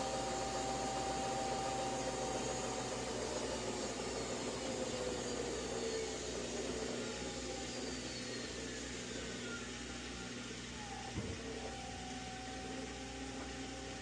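Amana washer in its spin cycle: a steady motor whine and drum hum whose pitch slides down through the middle, a single knock about eleven seconds in, then a steady whine again. The drain and spin are working normally after the pressure switch replacement.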